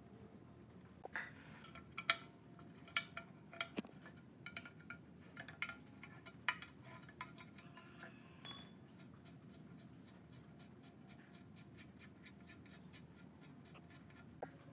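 Metal clinks and knocks as the steel belt guard of a belt-drive air compressor is handled and a wrench is set on a motor mounting bolt, with a brief ringing scrape near the middle. Then a ratchet wrench clicks quickly and evenly, about five ticks a second, for several seconds as it turns the electric motor's base bolt.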